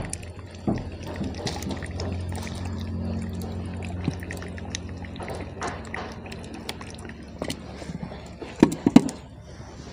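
Fish cooking water trickling and splashing out of a squeezed cloth bundle into a steel pot, as boiled fish is strained. Two sharp knocks come close together near the end.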